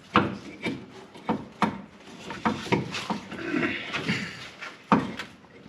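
Sharp knocks and clanks of tools against metal parts, about half a dozen strikes with scraping between them, as a replacement rubber motor mount is forced into place against the crossmember.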